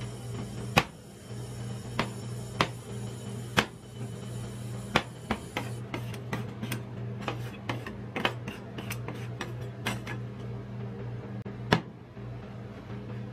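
Steel spatulas tapping and scraping on a metal ice-cream cold plate as chopped chocolate is pushed into a pile. Scattered sharp clicks bunch into a quick run of taps in the middle, with one more near the end, over a steady low hum.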